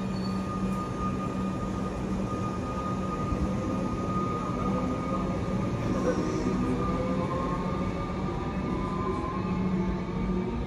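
Comeng electric suburban train pulling out of the station, its motor whine slowly rising in pitch as it gathers speed over a steady hum.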